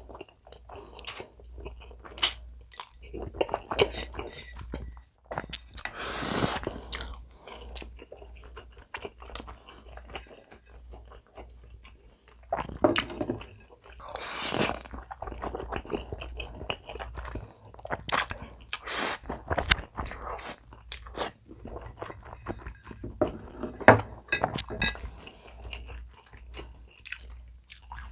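Close-miked eating of spaghetti: chewing with wet mouth clicks and smacks, and two long noodle slurps about six and fourteen seconds in.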